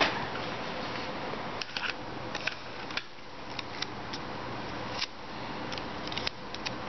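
Handling noise from a tin can being turned and fitted by hand: scattered small clicks and light taps, several close together near the end, over a steady low hum and hiss.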